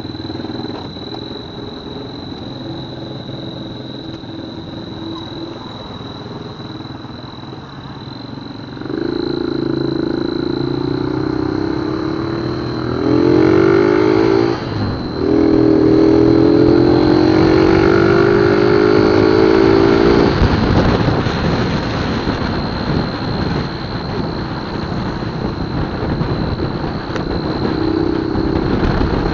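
Honda Verza 150 single-cylinder motorcycle engine with a turbo whistle fitted to the exhaust. It idles, then is revved for about ten seconds, and the whistle gives a loud wavering tone that rises in pitch partway through. It then settles back to idle, with a brief whistle again near the end.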